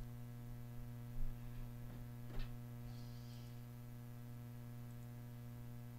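Steady low electrical hum with a stack of evenly spaced overtones, the recording's background noise; a faint click about two and a half seconds in.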